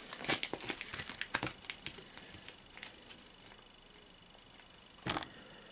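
Cards being handled: quick rustling and crinkling with small taps for the first two seconds, then quiet, then one brief rustle about five seconds in.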